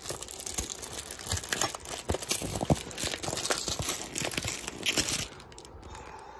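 Plastic wrapping and packing tape on a cardboard parcel crinkling and crackling as it is handled and turned over by hand. The crinkling stops about five seconds in.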